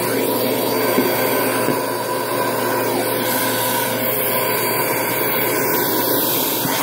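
Vacuum cleaner running steadily, a constant hum and whine with airflow noise.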